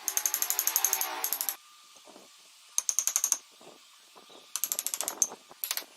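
Rapid mechanical clicking, about nine clicks a second, in four short bursts: a long one at the start, then shorter ones about three seconds in, near five seconds, and just before the end.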